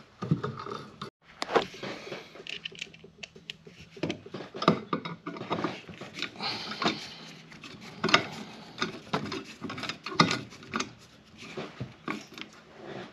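Irregular small clicks, scrapes and rustles of hands working electrical wires and a hand tool at an open outlet box.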